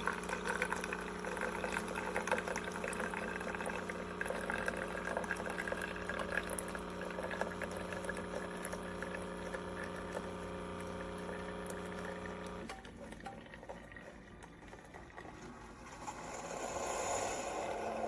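Keurig K-Elite single-serve coffee maker brewing: the water pump hums steadily under the gurgle and trickle of hot water running through the pod into the cup, then stops suddenly about 13 seconds in. A softer hiss rises near the end.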